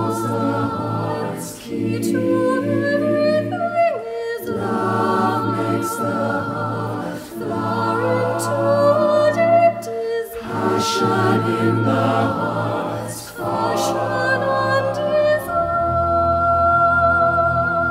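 Background music: a choir singing sustained, slow phrases, which fades out just after the end.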